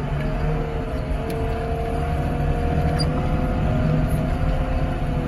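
Diesel engine of a grapple-equipped heavy machine running as the machine moves and turns, a steady low rumble with a steady hydraulic whine over it.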